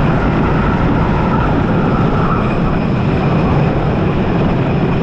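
Wooden roller coaster's Timberliner train running at speed, a steady loud rumble and rattle of its wheels on the wooden track.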